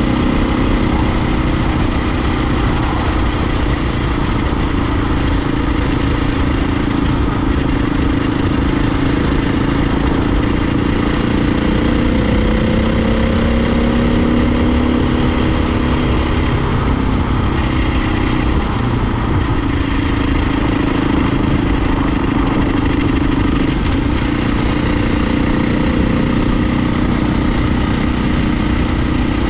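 Dirt bike engine running steadily while riding at road speed, with wind rumble on the microphone; for a few seconds around the middle the engine's pitch shifts up and then back down.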